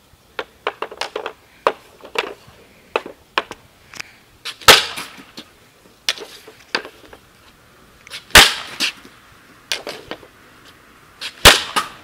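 Hockey shots with a Bauer Total One composite stick off a plastic shooting pad: three sharp cracks of stick striking puck, roughly four seconds apart, the loudest sounds here. Between them come lighter, quicker clicks of the blade handling the puck on the pad.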